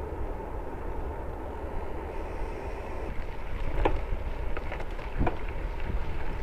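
Wind rushing over the microphone and the rumble of a moving bicycle, with a few sharp rattles and knocks from the bike on the dirt road near the middle.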